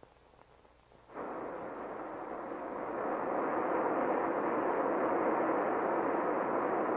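Rocket motor of a NATIV test missile firing at launch: a dull, rushing noise starts suddenly about a second in, swells over the next two seconds, then holds steady.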